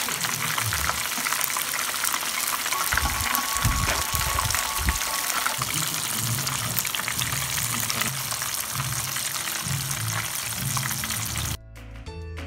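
Battered shrimp deep-frying in hot oil: a dense, steady crackle and sizzle that cuts off suddenly near the end, where music takes over.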